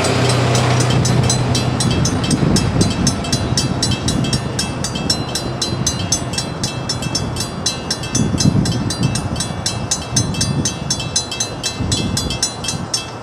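Railroad crossing warning bells, a Safetran electronic bell and a WCH mechanical bell together, ringing in rapid, steady strikes over the low rumble of a passing train. The bells stop at the very end.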